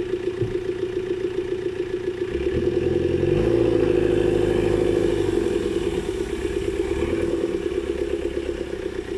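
Engines of off-road vehicles running during a mud recovery, as a Willys-type jeep tows a stuck Land Rover Defender on a strap. The engine sound swells louder and deeper for about three seconds midway as the vehicles pull under load, then settles back to a steady run.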